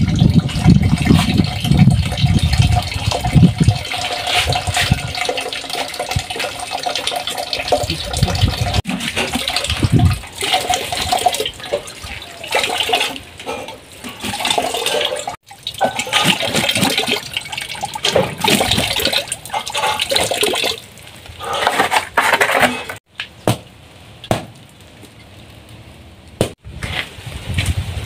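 Water running from a plastic water tank's tap and splashing over a woven basket being rinsed, with water falling into a bucket below. The rush of water breaks off and starts again several times, and there is a low rumble in the first few seconds.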